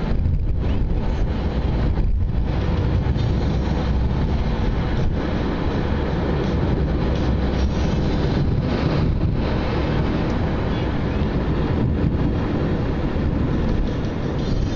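Steady road noise inside a moving car: a low rumble of tyres and engine with wind noise.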